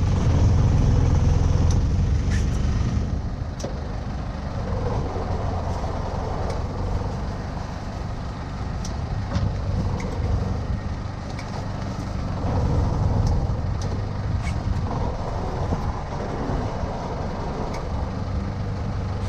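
Small powerboat's engine running with a steady low hum, mixed with water and hull noise and a few light knocks. It gets somewhat quieter about three seconds in.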